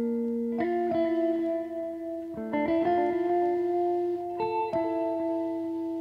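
Background music: slow chords, each held and left to ring, with a new chord about every one and a half to two seconds.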